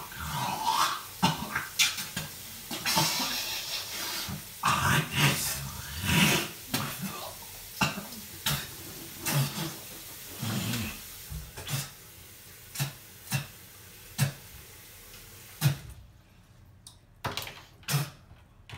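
Intermittent knocks and clatter at bathroom sinks, mixed with short grunts and other brief vocal noises; the sounds thin out near the end.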